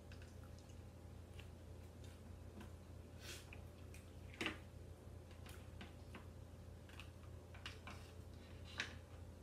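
Faint eating sounds: seafood and corn being handled by hand and chewed, heard as scattered small clicks, smacks and squishes, with a sharper click about four and a half seconds in and another near the end, over a steady low hum.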